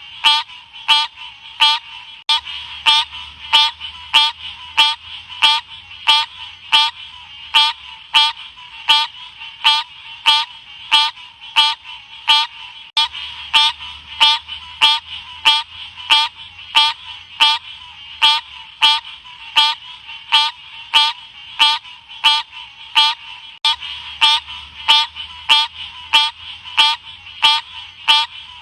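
Green cascade frog (Odorrana livida) calling: short, sharp notes repeated evenly, about two a second.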